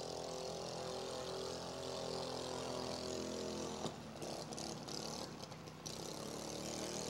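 Riding lawn mower engine running steadily as the mower drives, turning quieter and less even about four seconds in.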